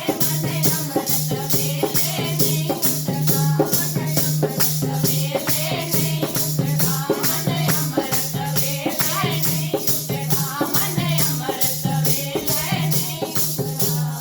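Devotional kirtan music: a fast, steady percussion beat over a held low drone, with a wavering melody line.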